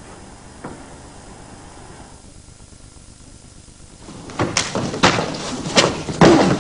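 Quiet low hiss for about four seconds, then a quick run of sharp thuds and scuffs of feet and bodies striking and grappling on a training mat.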